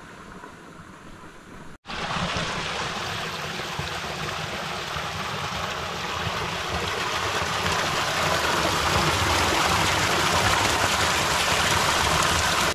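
Water pouring steadily from a PVC pipe and splashing into a pool below: an even rush that cuts in suddenly about two seconds in, after a quieter stretch of outdoor background noise, and grows a little louder.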